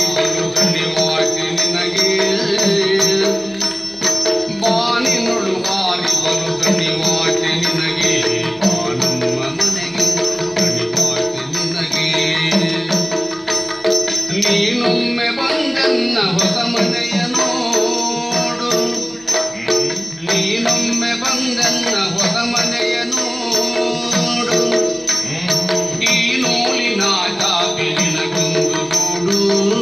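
Indian folk music: a voice singing in Kannada over a steady drone, with a regular high jingling beat.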